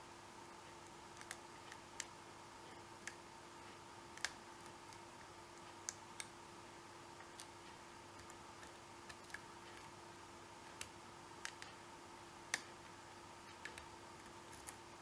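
Faint, irregular metallic clicks of a lock pick working the steel pin stacks of a six-pin American Series 790 padlock under light tension, single pins being lifted and set one at a time. A steady faint hum runs underneath.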